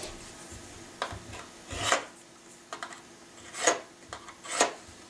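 A steel scribe scratching marking lines into thin sheet metal along the edge of a pattern, marking out a ramrod thimble's tabs and tube width. It comes as several short scraping strokes, three of them louder, with a few faint ticks between.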